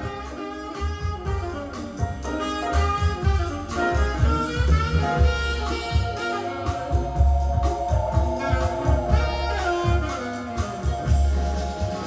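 Music played back from a cassette tape on a Sony cassette deck: an instrumental passage with a heavy, pulsing bass line under a melody.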